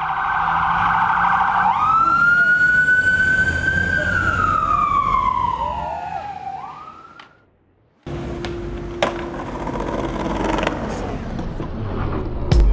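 A siren wail: one long tone that rises, holds and then slowly falls over about five seconds. After a brief drop-out, the sound cuts abruptly about eight seconds in to a skateboard rolling on pavement, with a few sharp clacks.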